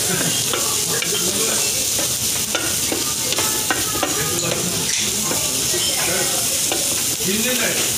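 Meat and onion sizzling in oil in a large steel pan, stirred and scraped across the pan with two wooden spatulas, giving many short scrapes and knocks over a steady frying hiss.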